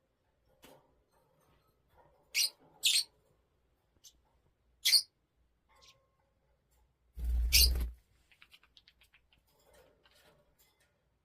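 Pet parrot giving short, sharp high-pitched squeaks, about four of them a second or two apart. The loudest comes with a low bump or rumble, and soft quiet chatter follows.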